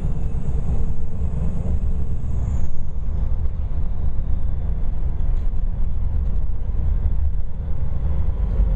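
Inside a moving city bus: steady low rumble of the bus engine and road noise. A faint high whine fades out about two and a half seconds in.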